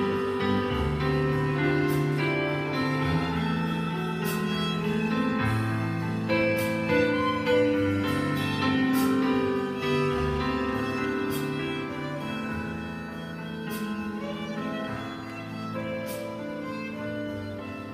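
Instrumental church ensemble music with a violin lead over sustained chords and a moving bass line, marked by light high ticks every second or two.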